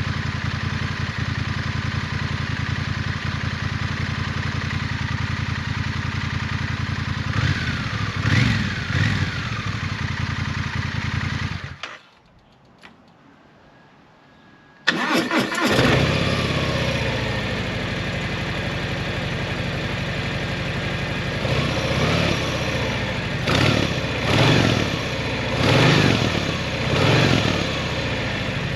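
Stock-exhaust cruiser motorcycle twin idling, revved twice, then switched off. After a few seconds of quiet a motorcycle engine is started and settles to idle, then is revved several times in quick blips.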